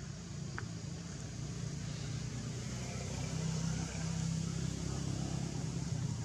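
A steady low engine hum, like a motor vehicle running, over a background hiss. It grows a little louder about three seconds in.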